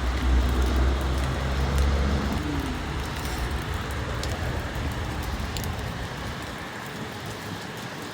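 Steady rain falling, with wind rumbling on the microphone for the first few seconds before easing off.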